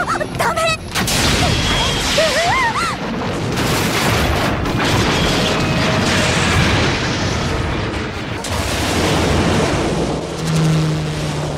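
Explosion sound effects in an animated film: continuous rumbling blasts with no break, with a wavering high whine about two to three seconds in. Near the end a steady low hum takes over.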